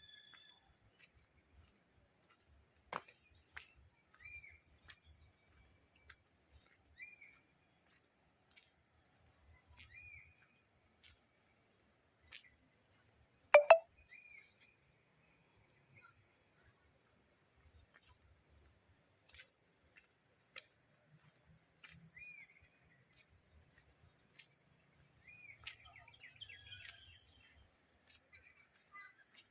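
Forest ambience: a bird gives short chirps again and again over a steady high hiss, with soft low knocks here and there and one sharp knock about halfway through.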